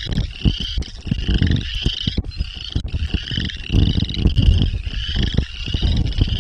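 Prairie dogs calling: a continuous run of high, overlapping chirps repeating every half second or so, with wind buffeting the microphone.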